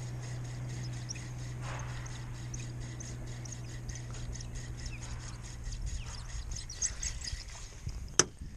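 Ultralight spinning reel being cranked, giving a fast, regular run of light ticks, about four or five a second, over a steady low hum. A single sharp click comes near the end.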